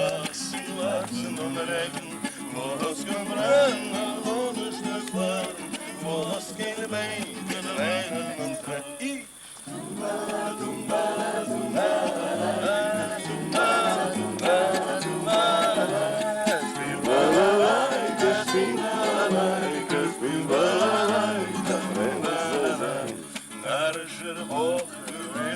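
Voices singing a song to plucked-string accompaniment, with a brief break about nine seconds in.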